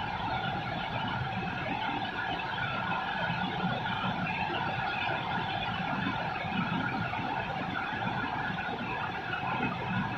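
Steady rain falling over a city, a constant even hiss with a low traffic rumble beneath it.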